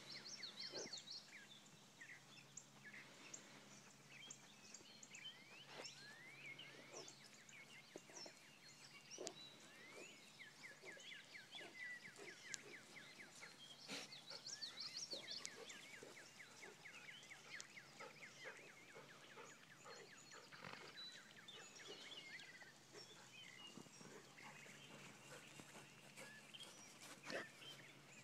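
Near silence: faint outdoor ambience with scattered distant bird chirps and calls.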